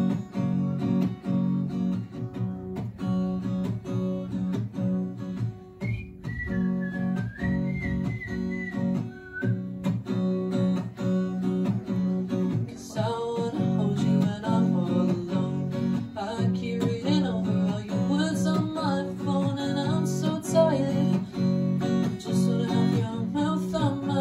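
Acoustic guitar strummed steadily in a solo live performance. A short high wavering tone comes in a few seconds in, and a wordless vocal melody joins over the guitar about halfway through.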